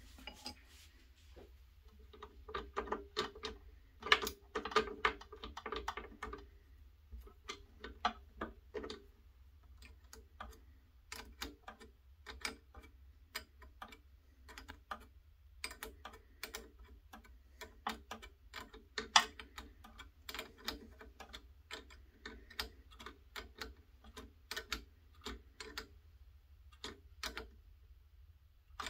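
Small wrench working the metal hose fittings on a scale-model hydraulic excavator's boom lines: an irregular run of light clicks and ticks, some in quick clusters, as the fittings are turned and the wrench is repositioned.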